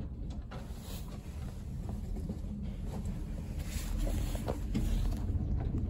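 Low, steady rumble of an elevator car travelling in its shaft, with a few faint clicks.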